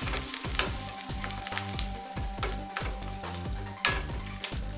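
Curry leaves sizzling and crackling in hot oil with mustard seeds and urad dal as a South Indian tempering (thalippu) is fried and stirred in a small steel pan, with frequent sharp pops through the hiss.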